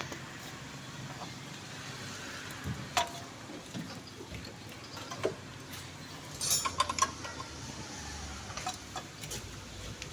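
Scattered metallic clicks and clinks of tools and parts as a mechanic works by hand on an autorickshaw engine, with a quick cluster of clicks about two-thirds of the way in.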